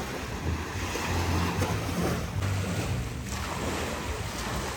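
Ocean surf washing on a beach, with wind buffeting the microphone in low rumbles.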